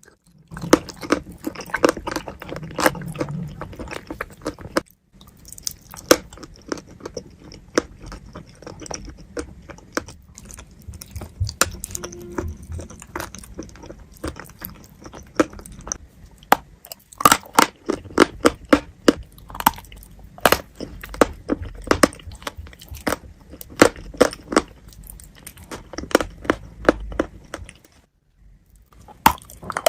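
Close-miked chewing of wet chalk with clay paste: a dense run of sharp crunches and bites over softer mushy chewing, with brief pauses. The crisp crunches come thickest in the second half.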